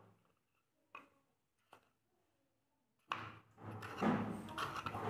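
A kitchen knife cutting vegetables on a wooden chopping board: a few soft, single strokes about a second apart. From about three seconds in a much louder, ongoing noise with a low hum takes over and grows.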